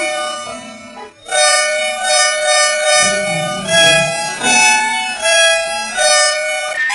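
A bus horn run through audio effects so that it sounds like a musical instrument: a held, many-toned horn chord that pulses in a rhythm, breaks off briefly about a second in and changes pitch around the middle.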